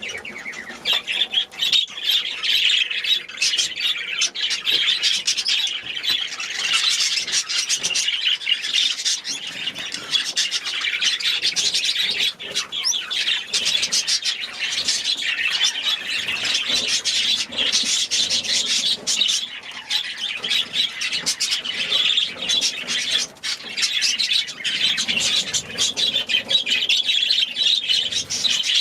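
A flock of caged small birds chattering and squawking without a break, many calls overlapping.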